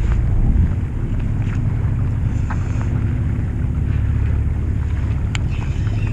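Fishing boat's engine running steadily in a low drone. A single sharp click about five seconds in.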